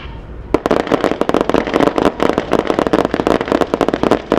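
Rapid gunfire from 5.56 mm Type 89 rifles and a MINIMI light machine gun, breaking out about half a second in as a dense, continuous rattle of overlapping shots.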